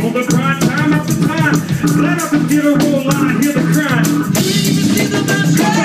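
Live band music with a man's lead vocal on a microphone over keyboards and a steady, repeating bass line.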